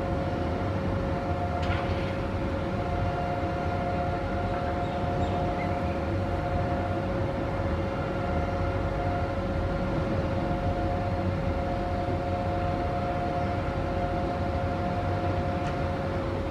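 A steady mechanical drone: a constant whine with a second tone that cuts in and out, over a low rumble.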